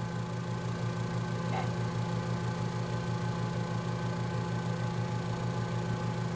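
Steady low hum with a slight regular pulse and a few faint steady tones above it. The sauce being shaken onto the plate makes no clear sound of its own.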